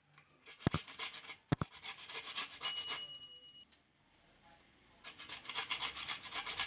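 White pumpkin (ash gourd) being grated on a stainless steel hand grater: quick, repeated rasping strokes that pause for about a second midway, then resume. Two sharp clicks come about a second in, and a short high ringing tone follows near the middle.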